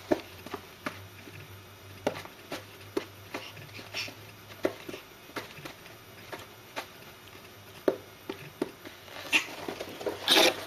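A small Pomeranian dog playing with a thrown squeaky toy: scattered light taps and scuffles, with a louder noisy burst near the end.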